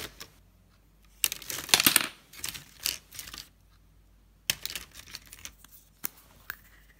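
MAC lipstick tubes handled in a wicker basket: short clicks and rattles as the tubes knock against each other and the basket, densest about a second in, then a few single sharp clicks.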